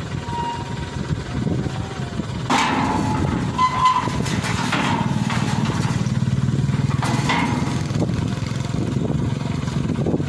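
Metal loading ramps clanking against a truck bed as they are lifted and set in place, about four knocks, one with a short metallic ring, over an engine running steadily.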